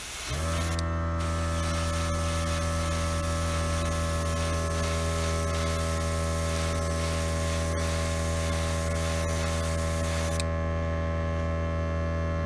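Airbrush compressor kicking on just after the start and running with a steady hum, while the airbrush hisses as it sprays paint through a comb stencil. The spray hiss stops near the end, leaving only the compressor hum.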